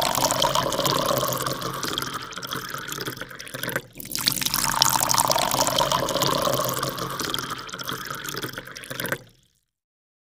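Sound effect of rushing, splashing water in two long surges, with a brief break about four seconds in; it cuts off abruptly about nine seconds in.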